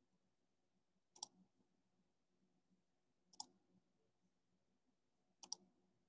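Three faint computer mouse clicks about two seconds apart, each a quick press-and-release tick, against near silence.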